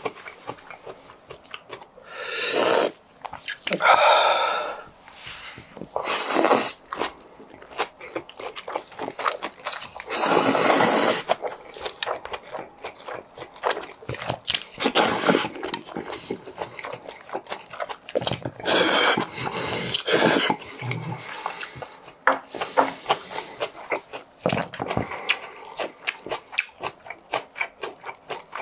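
Chapagetti black-bean noodles slurped six times, each slurp about a second long and the loudest sound, with wet chewing and small mouth clicks in between.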